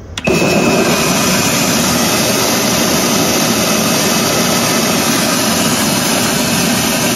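Twinbird home rice milling machine switching on with a click about a quarter second in, then running with a loud, steady whirring rush as it mills three cups of rice to white rice.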